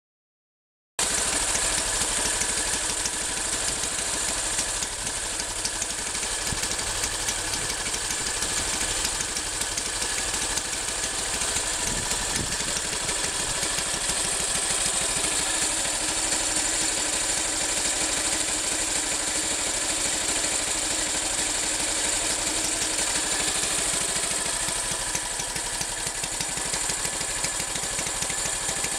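Norton Big 4 596cc single-cylinder side-valve engine of a Trusty Steed tractor idling steadily.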